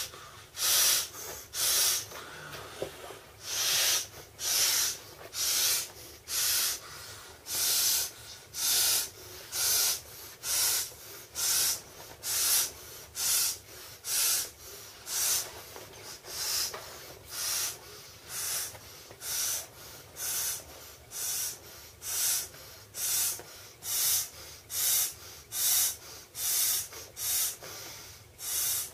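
Mouth-inflating a vinyl swim ring: a steady rhythm of short, breathy puffs blown into the ring's valve, about one a second.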